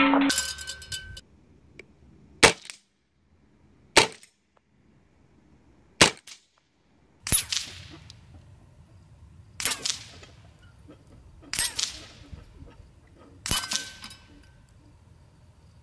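Seven sharp shots, roughly every two seconds, from an FX Monsoon regulated semi-automatic PCP air rifle firing .22 pellets at steel spinner targets. The later shots are followed by a brief metallic ring as the pellets strike steel.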